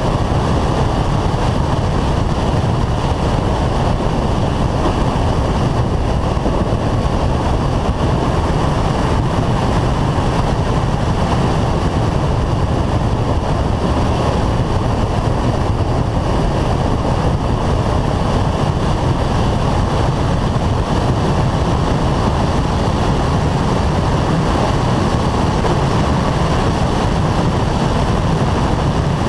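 Renault Clio 182 lapping at speed: steady wind rush buffeting the roof-mounted camera, over muffled engine and tyre noise, with no distinct gear changes.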